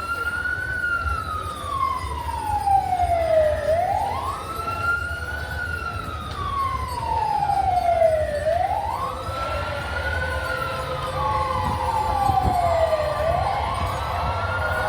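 A siren wailing in slow cycles, each a quick rise followed by a long falling tone, repeating about every four and a half seconds. A low rumble runs underneath.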